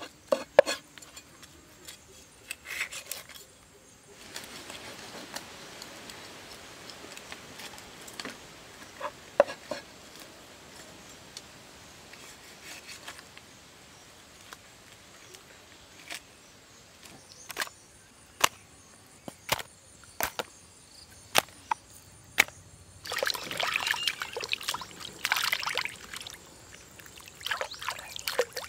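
A knife knocks and scrapes on a wooden chopping board as small sea fish are cleaned, in sharp separate strikes. Near the end, water splashes and sloshes loudly as the fish are washed by hand in a bamboo basket.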